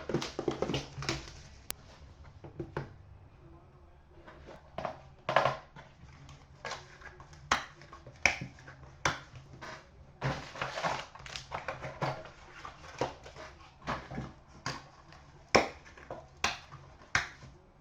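Plastic wrapping crinkling and tearing in irregular crackles and rustles as a sealed Panini Dominion hockey card box is opened.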